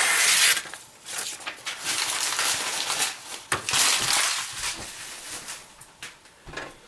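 A sharpened IVO paring knife slicing through newsprint: a short, loud hiss of cut paper at the start, then a longer, quieter run of slicing and paper rustle that fades toward the end.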